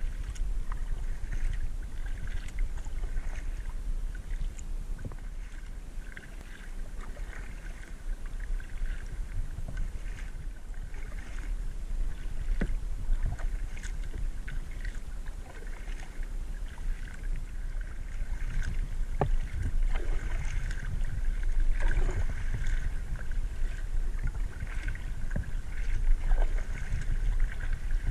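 Kayak paddle strokes on calm water: the blades dip and splash in a steady rhythm, with drips and small clicks, over a constant low rumble.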